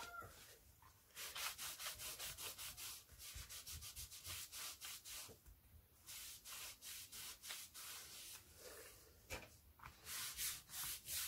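A cloth rubbed briskly back and forth over a card scrapbook page, about five strokes a second, in bursts with short pauses, pressing down a freshly glued pop-up piece.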